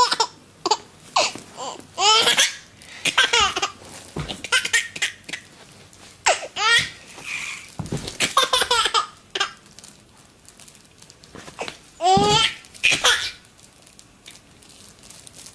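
Baby laughing in repeated fits: several bouts of high-pitched belly laughter separated by short pauses.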